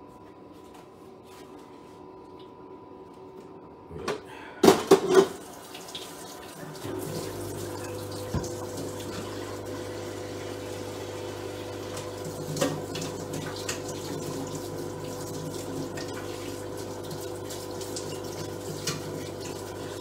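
Pots and dishes clatter at a kitchen sink about four to five seconds in. From about seven seconds in, a kitchen tap runs steadily into the sink with a low hum, with the odd clink of a pot being washed.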